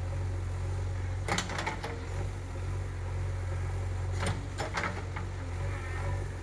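Diesel engine of a JCB 3DX backhoe loader running steadily with a low hum, with two short clusters of sharp knocks, about a second and a half in and again around four seconds in.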